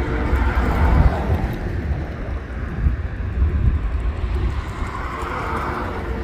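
Covered grain hopper cars of a freight train rolling past, a steady low rumble of wheels on rail.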